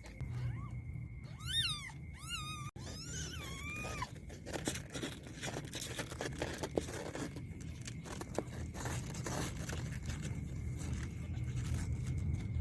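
A cat meowing, a few short rising-and-falling calls in the first four seconds, followed by a stretch of irregular clicks and rustling.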